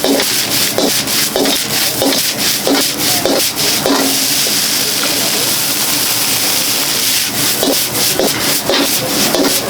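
Fried rice stir-frying in a hot wok: a steady loud sizzle with a ladle scraping and knocking against the pan in quick strokes, easing off in the middle before the strokes pick up again near the end.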